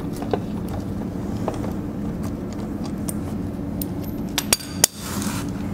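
Metal tools and lug bolts clinking as the bolts come off a tractor's rear wheel: a few light clicks, then two sharp, ringing metal clinks about four and a half seconds in, followed by a brief rustle. A steady low hum runs underneath.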